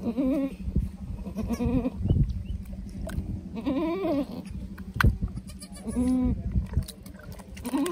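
Doe goat in labour bleating, about five drawn-out calls that rise and fall in pitch. There is a sharp knock about five seconds in.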